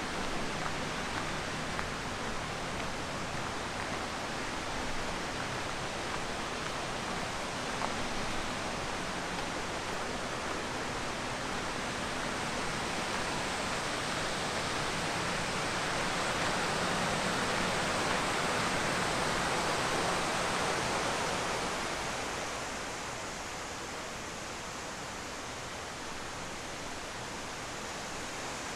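Rushing river water: a steady hiss that swells louder for several seconds past the middle, then eases off.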